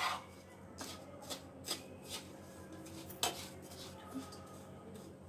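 Dry, crumbly gujia filling of roasted khoya and semolina with ground nuts and powdered sugar being mixed in a frying pan by hand and with a wooden spatula: faint, scattered rubbing and scraping strokes.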